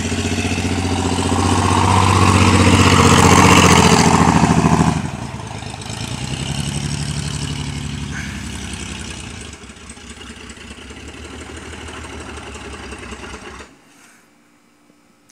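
Chevrolet S10 pickup engine with a rod knock, revved and held up for about five seconds, then dropping back to idle and cutting out shortly before the end.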